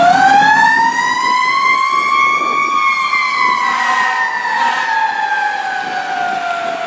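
Fire engine's siren sounding a wail: it climbs in pitch over the first couple of seconds, then slowly falls and grows a little fainter as the truck pulls away on an emergency response.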